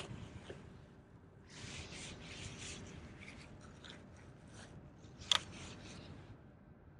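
Spinning reel (Daiwa Luvias LT) being cranked in short spells, a soft rasping whir as line is wound in, with one sharp click about five seconds in.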